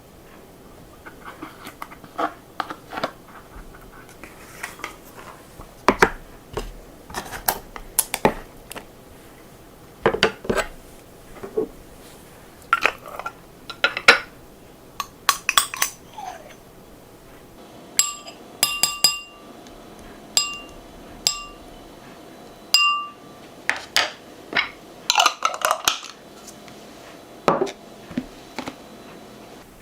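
Dishes, glassware and utensils clinking and knocking now and then during kitchen work. Past the middle comes a run of short, ringing clinks, all at the same pitch.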